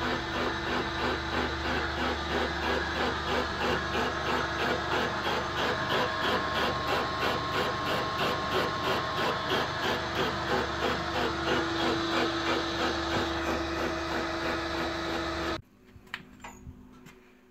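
Bridgeport-type vertical milling machine running, its cutter machining the bore of a worn tractor clutch pedal: a steady hum with an even pulsing beat. It cuts off suddenly near the end, leaving a few faint clicks.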